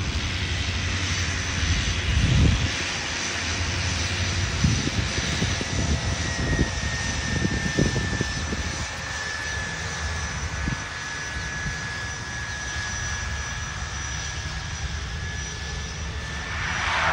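Twin-engine turboprop plane's engines running on the runway: steady engine noise with a thin, high whine that sinks slightly in pitch about halfway through.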